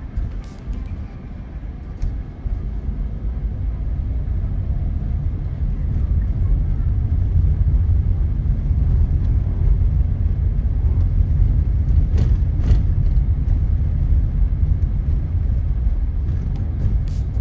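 Steady low rumble of a car driving on a highway: road and tyre noise that grows louder over the first few seconds, with a few brief knocks.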